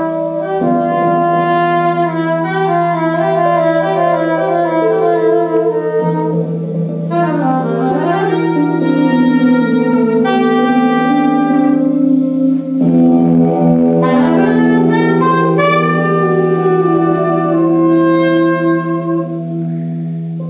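Free-improvised duo of soprano saxophone and electric guitar through effects pedals, playing shifting sustained notes over a steady low drone. A sliding pitch swoop dips down and climbs back up about eight seconds in.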